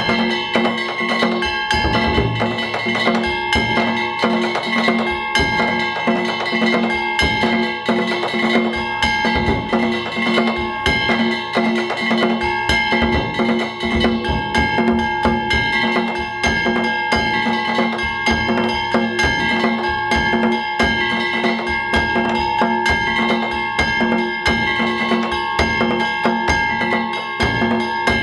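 Danjiri festival hayashi: taiko drums beaten in a fast, continuous rhythm, with small hand gongs (kane) struck along with them and ringing steadily over the drumming.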